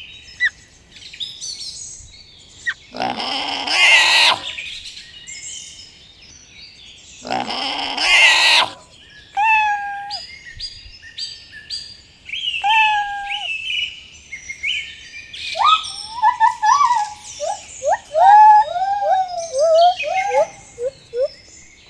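Birds chirping and calling, with two louder, longer calls about three and seven seconds in, and a quick run of short notes near the end.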